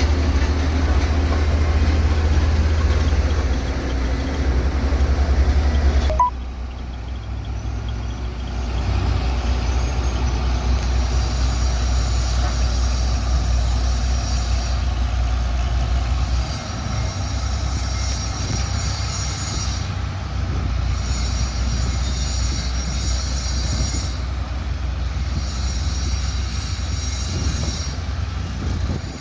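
Heavy diesel road-construction machinery running, with a deep steady engine rumble. The sound changes abruptly about six seconds in, and in the second half a high-pitched whine comes and goes several times.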